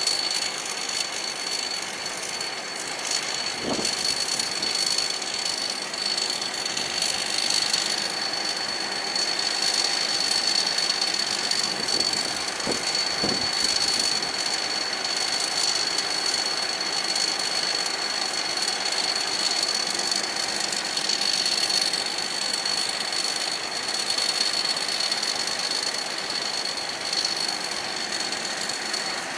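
Combine harvester running steadily during unloading, with a constant high-pitched whine over the engine noise and a couple of faint knocks.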